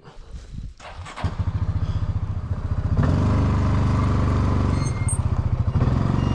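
Coleman UT400 UTV engine revving up as the vehicle pulls forward: the engine note picks up about a second in and runs louder and steady from about three seconds in.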